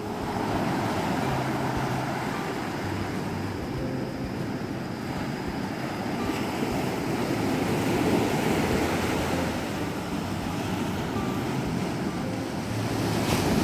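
Sea surf: waves breaking and washing up in foam over rocks and sand, rising and easing in a steady wash.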